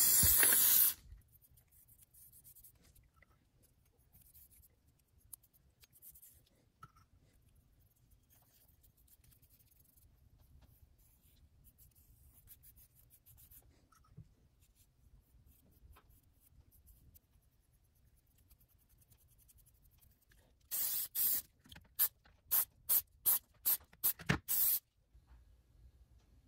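An aerosol spray can sprays for about a second. Then only faint small handling sounds, until near the end a quick run of about eight short scraping strokes.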